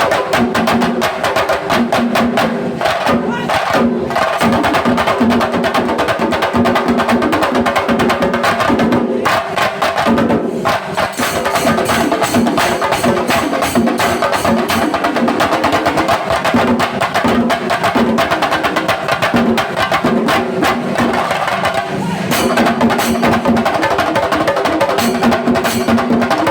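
Shinkari melam ensemble playing: chenda drums beaten in a fast, dense rolling rhythm with elathalam cymbals, loud and continuous, with a steady held tone under the drums that breaks off several times.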